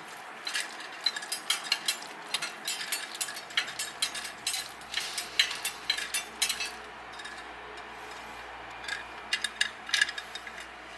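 Irregular light metallic clicks and rattles as a Toyota solid-axle steering knuckle on brand-new bearings is pulled around with a hanging spring scale in a knuckle-bearing preload breakaway test; the clicking is dense for about seven seconds, then a few more clicks come near the end.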